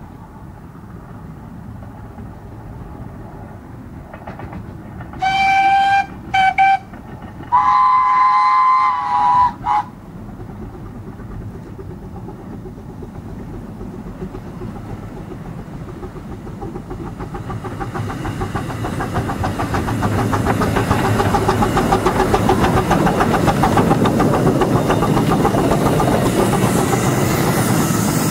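Narrow-gauge steam locomotives double-heading a passenger train: the whistle sounds four times, a blast, a short toot, a long blast and a short toot, between about five and ten seconds in. The rapid chuffing of the engines then grows steadily louder as the train comes up and passes close by.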